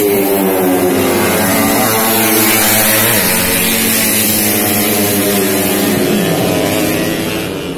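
Motorcycle engines revving at race speed, their pitch rising and falling several times.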